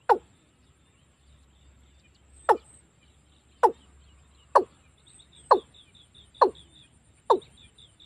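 Watercock (Gallicrex cinerea) calling: a series of short, deep 'kok' notes, each falling in pitch, seven in all, coming faster toward the end.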